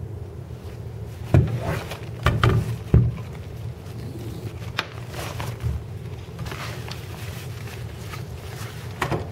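Black nylon bag rustling and a few sharp knocks, the loudest in the first three seconds, as a Rys-T helmet replica is handled and pulled out of it, over a steady low hum.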